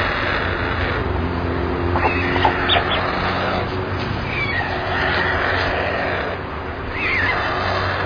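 Steady outdoor hiss with a low hum from a nest webcam's microphone, broken by a few short, descending bird chirps and a couple of faint clicks.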